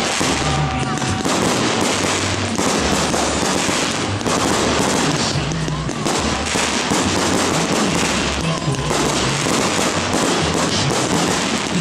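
Fireworks display with dense, continuous crackling and bursts of aerial shells, with music playing underneath.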